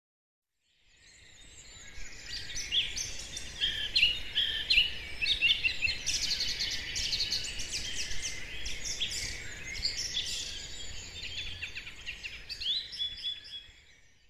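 Woodland birdsong: several small birds chirping and trilling in quick, overlapping phrases over a faint low background rumble. It fades in about a second in and fades out near the end.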